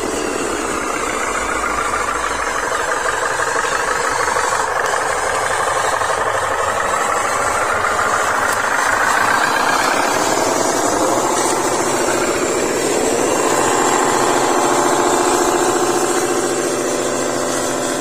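Radio-controlled model trucks driving, giving a continuous engine-like drone whose pitch swings up and down, then settles into a steadier tone about two-thirds of the way through.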